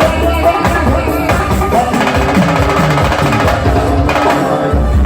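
Live band music, loud and steady, with drums and percussion over a strong bass line.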